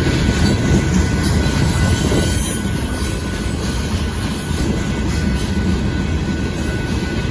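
Freight train of hopper cars rolling past, a steady low rumble of wheels on rail.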